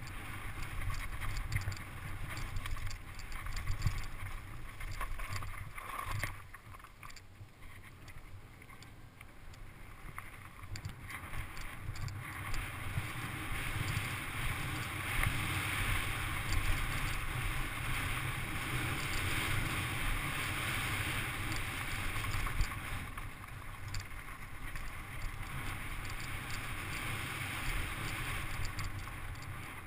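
Wind buffeting a bike-mounted camera's microphone as a mountain bike rolls fast down a loose gravel trail, with a steady rumble of tyres on gravel and many small knocks and rattles. It eases off briefly a few seconds in and gets louder from about twelve seconds on.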